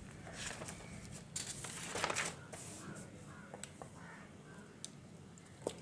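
Quiet rustling of paper as a sheet is turned over and smoothed flat by hand, loudest in two soft sweeps about one and a half and two seconds in.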